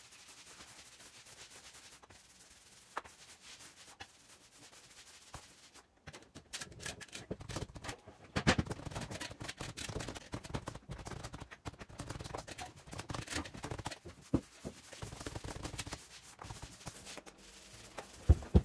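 Long-pile exterior paint roller rolling paint onto a wall: repeated rough rubbing strokes, faint at first and louder from about six seconds in.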